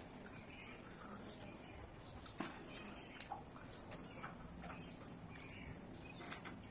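Faint chewing and wet mouth clicks from a person eating rice and chicken curry by hand, with a few sharp little smacks scattered through.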